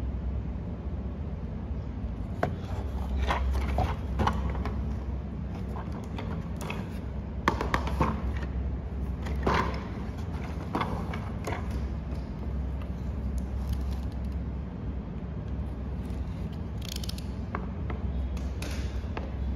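A cardboard toy box being handled and turned over on a tabletop: scattered taps, scrapes and light knocks of fingers and cardboard, over a steady low hum.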